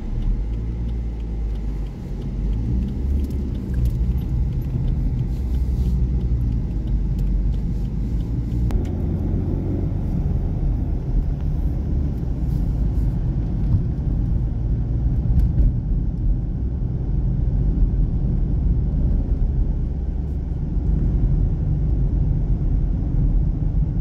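Car in motion heard from inside the cabin: engine and tyre road noise making a steady low drone at road speed.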